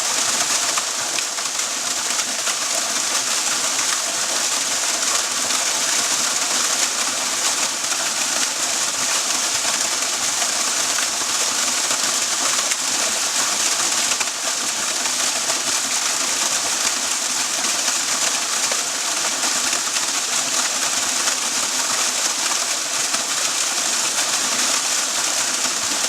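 Waterfall rushing in a steady, unbroken hiss of falling water.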